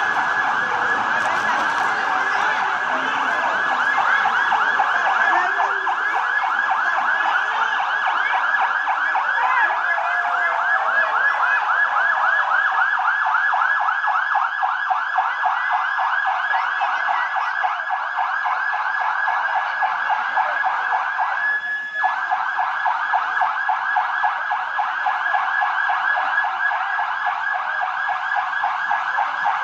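Siren wailing in a fast, continuous warble, briefly cutting out about three-quarters of the way through.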